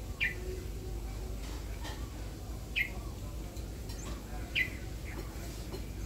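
Caged red-whiskered bulbul giving three short, sharp calls, each falling in pitch, spaced about two seconds apart.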